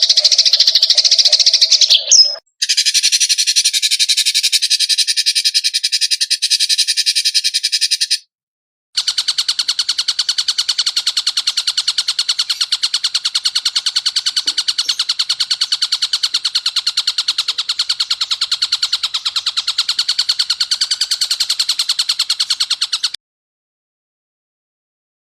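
Cleaned-up recordings of songbird calls spliced one after another. First comes a brief high call, then a rasping, buzzy song for several seconds. After a short gap there is a long, fast, evenly pulsed trill, which cuts off abruptly near the end.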